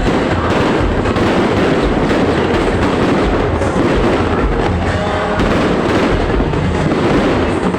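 Fireworks display going off in a dense, continuous barrage: many overlapping bangs and crackles with no pause between them.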